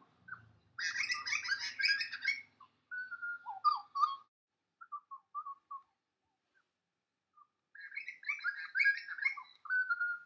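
A songbird singing: two rich warbling phrases several seconds apart, each followed by a few clear whistled notes.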